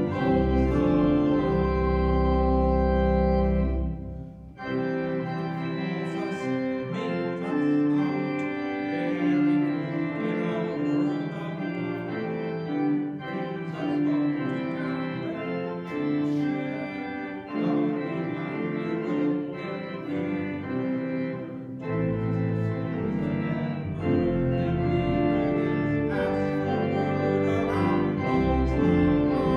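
Church organ playing a hymn tune in sustained chords, with deep pedal bass notes that drop out about four seconds in and return about two-thirds of the way through.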